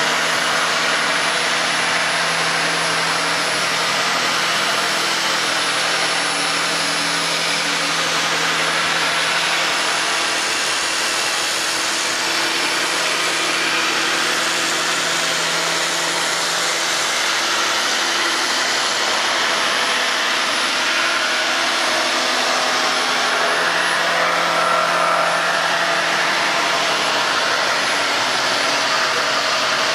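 Handheld electric belt sander running steadily, its belt grinding along a long curved wooden workpiece.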